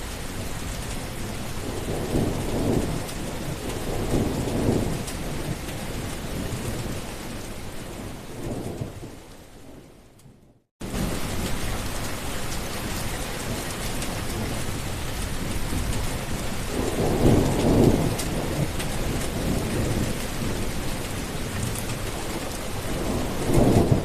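Steady rain with rolling thunder rumbling several times. About ten seconds in, the rain fades out to a moment of silence. A second rain-and-thunder recording then starts abruptly, with more rumbles, the loudest near the end.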